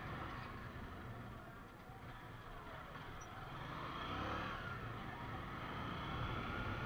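Motorcycle engine running as the bike rides slowly along a street, getting a little louder about four seconds in.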